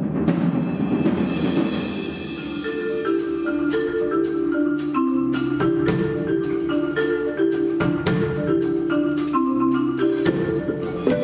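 Percussion ensemble playing: a drum roll fades away over the first two seconds, then marimbas take up a steady running pattern of repeated mallet notes over low bass notes, with sharp drum strikes mixed in.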